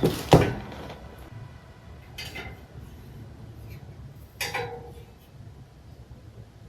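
A few sharp metallic clinks and taps from wheel-building work with a spoke wrench on the spokes of a BMX wheel. The loudest comes just after the start, with quieter ones about two and four and a half seconds in, the last ringing briefly.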